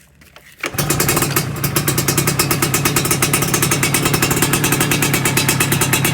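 Yamaha F1ZR's single-cylinder two-stroke engine running through a freshly fitted AHM Malaysia aftermarket exhaust. It comes in sharply under a second in, then runs steadily with a rapid, even firing rattle.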